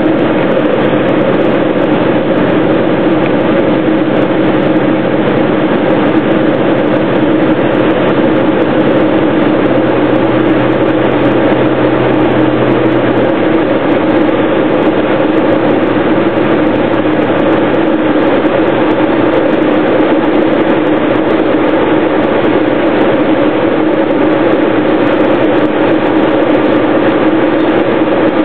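Diamond Eclipse light aircraft's piston engine and propeller droning steadily, heard loud from inside the cockpit on final approach to land.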